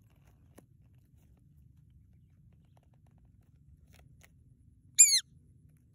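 A shikra (Accipiter badius) gives one loud, sharp, high-pitched call about five seconds in, falling in pitch. Before it there are only a few faint ticks and rustles as the hawk works at its quail.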